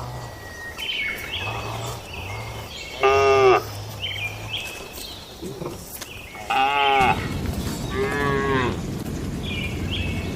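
Cattle mooing: several drawn-out calls, the loudest about three seconds in, then two more close together about six and a half and eight seconds in, with lower, quieter moos earlier. A steady low rushing noise sits under the last few seconds.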